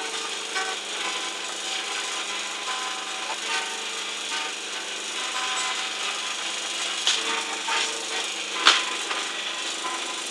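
Acoustic guitar strummed, playing a song's instrumental introduction before the vocal comes in. A couple of sharp clicks stand out about seven and nine seconds in.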